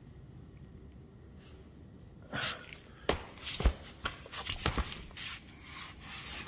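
Quiet room tone, then from about two seconds in a run of irregular knocks, clicks and rustles of handling as someone moves in close to a tool cart's wheel.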